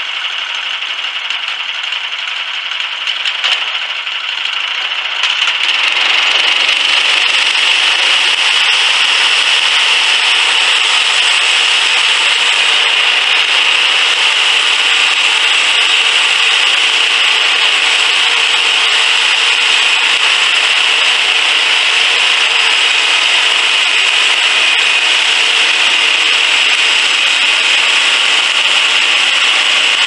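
Homemade bandsaw sawmill driven by a small gasoline engine, sawing lengthwise through a log. It gets louder about five seconds in as the blade works into the cut, then holds a steady, even sawing noise.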